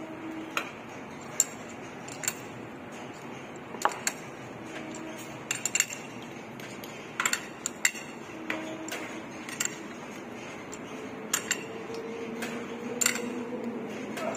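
Adjustable steel wrench clinking against the nut of a dyna bolt (sleeve anchor) as it is tightened into a concrete wall: irregular sharp metallic clicks, sometimes two or three close together.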